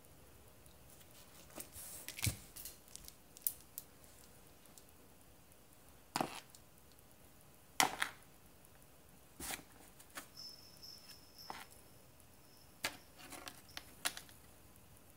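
Bengal cat's paws and claws scrabbling and batting against a cardboard box while it plays with a dangling wand toy: scattered scratches and knocks on cardboard at irregular intervals, the loudest about eight seconds in.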